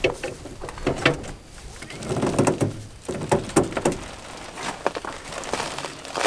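Irregular clicks, knocks and short creaks from the hand crank and dragsheet mechanism of a Haul-Master truck bed cargo unloader being cranked under a load of about a ton of garden soil.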